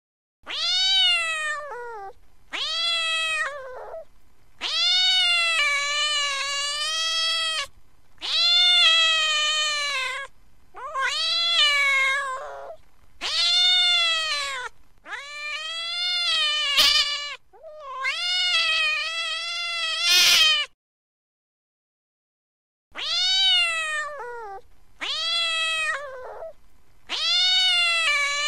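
Domestic cat giving a string of angry, drawn-out meows, about eleven calls of one to three seconds each, every call rising and then falling in pitch. There is a silent pause of about two seconds roughly three-quarters of the way through.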